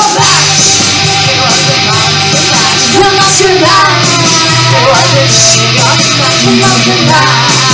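Live rock band playing loud, with electric guitar, a steady bass line and a sung vocal line. The full band comes in right at the start.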